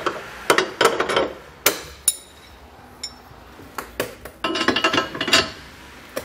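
Fifth wheel hitch pins being slid through the hitch legs and the base rail: a series of sharp metal clicks and clinks, thickest in a cluster about four and a half seconds in.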